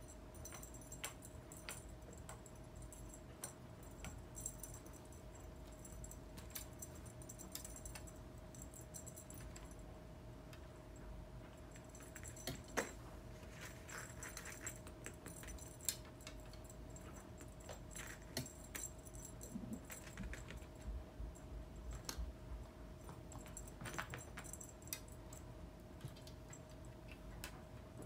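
Small jingle bells on a cat wand toy shaking as the lure is whisked about and the kitten pounces on it. The jingling comes in irregular shakes, busiest in the first several seconds, with light scattered taps and scuffs in between.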